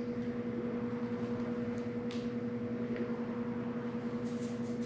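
Steady low electrical hum from an unseen appliance, with a few faint soft squirts of conditioner squeezed from a plastic bottle about two seconds in and again near the end.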